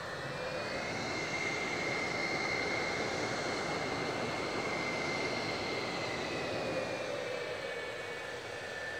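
McDonnell Douglas F-4EJ Kai Phantom II's twin J79 turbojets at taxi power: a steady rushing jet noise with a high whine, swelling in the first couple of seconds as the jet rolls closer and easing slightly near the end.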